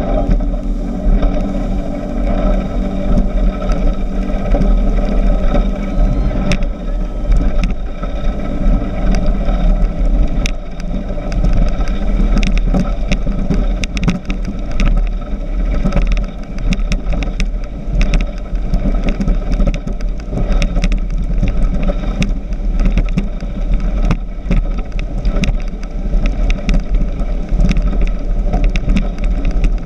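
Speedboat running at speed: a steady engine drone under heavy wind rumble on the microphone, with many short knocks throughout.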